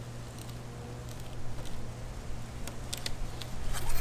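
Fillet knife sliding between the skin and flesh of a fish fillet on a cleaning board, giving a few faint wet clicks and scrapes that bunch up near the end, over a steady low hum.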